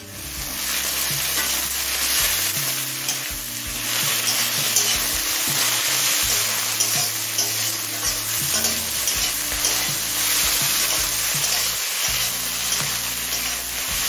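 Tomato frying with onion and whole spices in hot mustard oil in a kadai, sizzling steadily while a spatula stirs and scrapes the pan.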